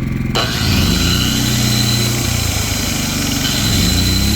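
Makita GA7021 angle grinder switched on about a third of a second in and running freely with a steady high whine, a test spin on fresh CB-204 carbon brushes. A low steady hum runs underneath.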